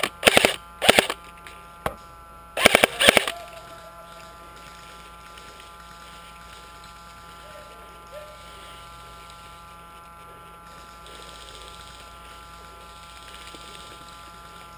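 Airsoft gun fired in three short rapid bursts close to the microphone in the first few seconds, with a single click between them. After that only a steady faint electrical hum remains.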